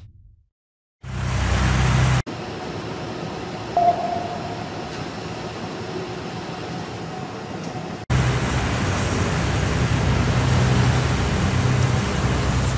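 Steady rumbling sound-effect noise of a warship's engines and the sea, with a low hum underneath. It breaks off abruptly twice, dropping to a quieter stretch in between, and a short tone sounds about four seconds in.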